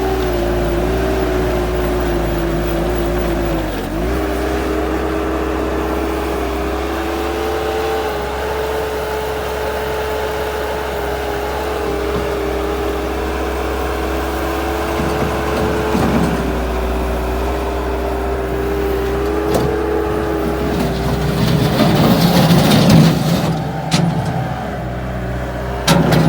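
Bobcat 863G skid steer loader's diesel engine running steadily while the machine grades. Its pitch dips briefly and recovers a couple of times, and there is a louder, rougher stretch near the end.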